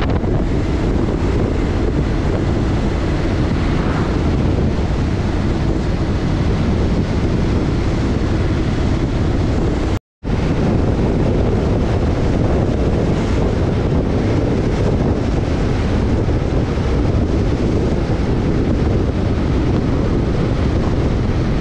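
Wind rushing over the microphone of a motorcycle on the move, a steady noise with the rumble of engine and road underneath. The sound cuts out for a moment about ten seconds in, then carries on the same.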